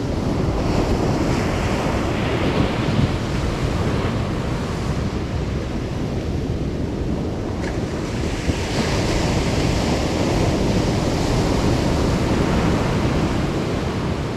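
Ocean surf washing onto a beach, the hiss of the breaking water swelling twice, early on and again for several seconds in the second half, over a constant low rumble of wind buffeting the microphone.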